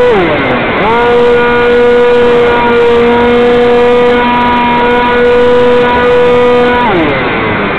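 Hobbyzone Stratocam's electric motor and propeller whining, heard from the camera on board the small model plane, with wind hiss. The pitch drops as the throttle is eased right at the start, climbs back up within about a second and holds steady, then falls away again near the end as the motor is throttled back.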